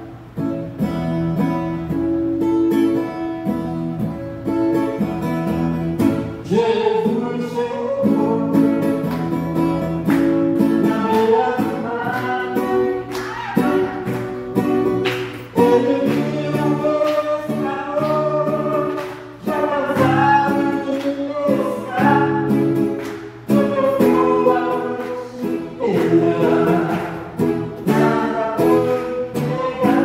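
A man singing a song in Portuguese while strumming an acoustic guitar, both sounding through the microphone.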